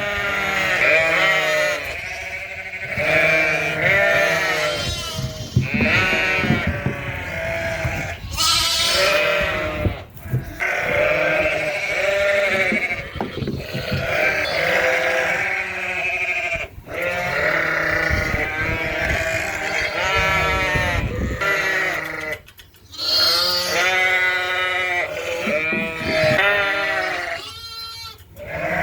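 A flock of Dorset ewes and lambs bleating continuously, many overlapping calls at different pitches, with a low rumble of movement beneath.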